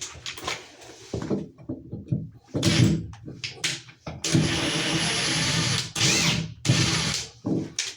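Cordless drill or power driver running in short spells, the longest lasting nearly two seconds, with clicks and handling noise between the runs.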